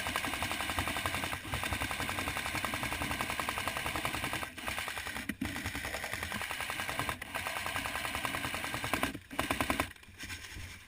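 Airsoft guns firing on full auto: long, rapid strings of shots with a few short breaks, stopping about ten seconds in.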